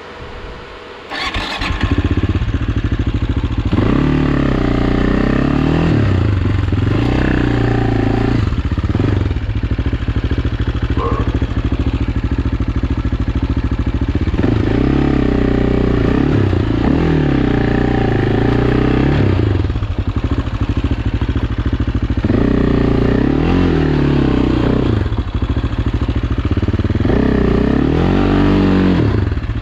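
AJP PR7's single-cylinder motorcycle engine catching about a second in, then running with the revs rising and falling again and again as the throttle is worked.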